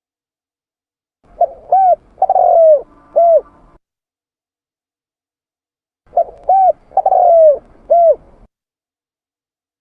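Spotted dove (tekukur) cooing: two phrases, each of two short coos, a longer falling coo, then a last short coo, with silence between the phrases.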